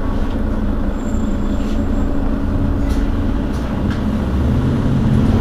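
Mercedes-Benz Citaro Facelift city bus's engine idling steadily, heard from behind the bus where the engine sits. The engine note rises a little and gets louder near the end.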